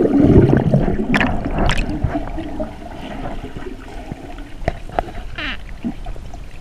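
Gurgling and rushing water heard through a submerged action camera's housing, loudest in the first second or two, then quieter with scattered clicks and knocks.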